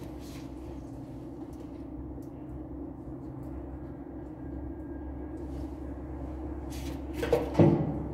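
Hand tools knocking against metal as a mechanic works on a JCB engine during a top overhaul: a couple of sharp clanks near the end over a steady low machine hum.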